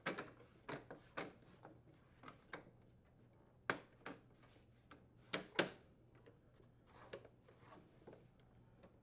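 Plastic inner door trim of a Frigidaire microwave door being pressed and snapped into place: a scattered series of short clicks and taps, the loudest two close together a little past the middle.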